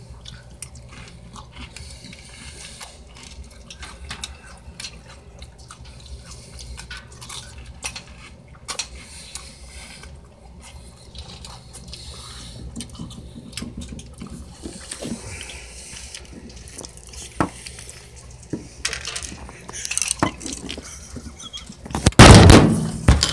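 A utensil clicking and scraping against a bowl of cereal and milk, with small liquid sounds as it is eaten. Near the end, loud rustling and knocks as a hand and the bowl brush against the microphone.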